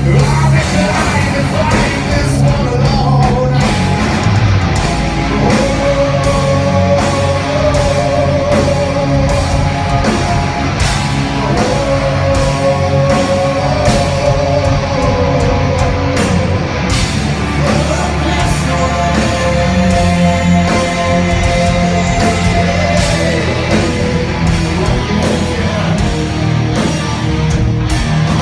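A heavy rock band playing live, heard from within the crowd: distorted electric guitars, drums and a lead singer holding long notes over the band.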